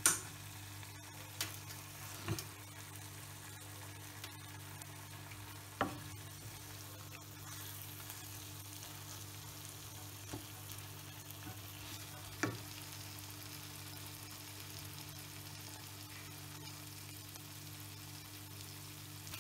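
Pepper chicken frying in a nonstick wok with a steady fine sizzle as it is cooked dry. A wooden spatula stirs it, knocking against the pan now and then.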